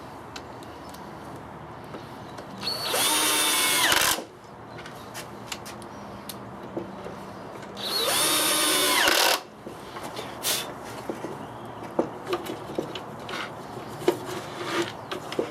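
Power drill run in two short bursts, about three and eight seconds in, each spinning up in pitch and then holding, as it works into the wooden backstop of a router-table fence. Small knocks and handling clicks come between and after the bursts.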